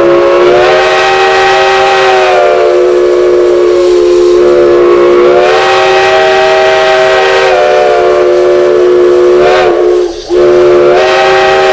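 Steam whistle blown in a long blast, sounding a chord of several notes at once. The upper notes waver in pitch as it sounds. It cuts off briefly about ten seconds in and then blows again.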